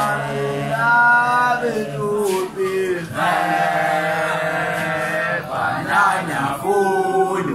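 Schoolboys' voices singing a gwijo, a South African group chant, in long held notes that slide from pitch to pitch.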